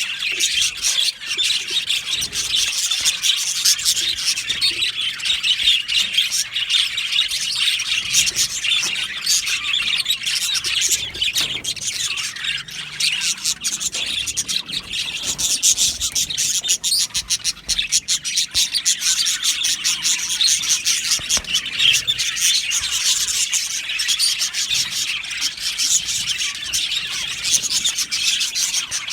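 A colony of budgerigars chirping and warbling together, a continuous dense chatter of overlapping calls.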